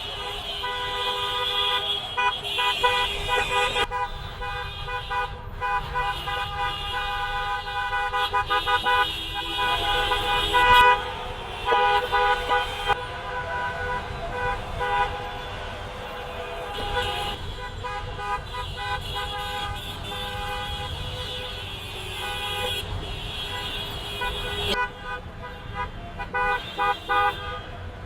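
Many car horns honking at once in a traffic jam: several steady horn tones of different pitches overlap and are held for seconds at a time, with shorter blasts near the end, over a low rumble of traffic.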